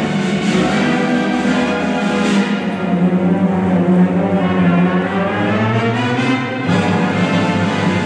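Symphony orchestra with a featured brass quintet playing film music, a full sustained orchestral texture that shifts to a new chord about seven seconds in.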